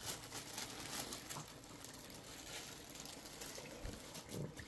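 Hot cooking oil sizzling and crackling as small snacks fry in it, with a fine, constant patter of little pops.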